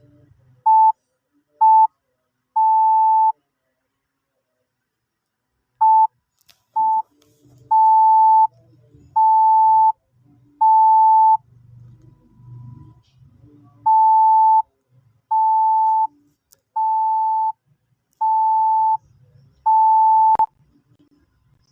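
Morse code practice tone: one steady mid-pitched beep keyed slowly into dots and dashes with long pauses between characters. It sends two dots and a dash, then two dots and three dashes, then five dashes, which are the digits 2 and 0.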